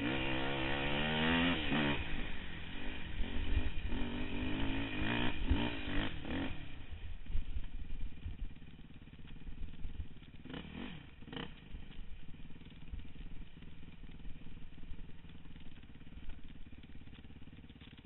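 Quad (ATV) engine under throttle, its pitch rising and falling for the first six seconds or so, then dropping to a low steady run. Two short revs come about ten to eleven seconds in, and the engine eases off near the end.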